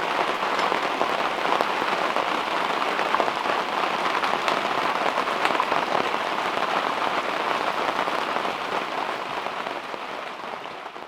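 Heavy rain pouring down in a dense, steady patter that eases off slightly near the end.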